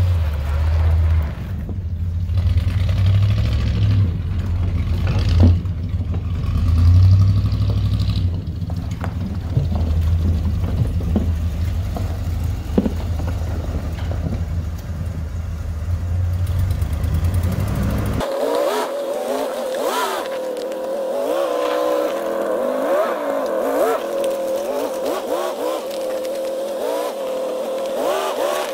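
Motorhome engine running and revving as the RV is driven through deep snow, its pitch wavering up and down with the throttle. For the first two-thirds a heavy low rumble, like wind on the microphone, lies over it; after that the engine tone comes through clearly.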